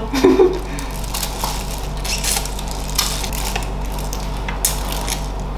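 Close-up chewing of crunchy chicken feet: irregular crisp crunches and clicks as they are bitten and chewed, over a steady low hum.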